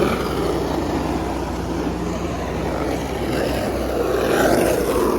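Skateboard wheels rolling on pavement: a steady rumble that swells a little about four and a half seconds in.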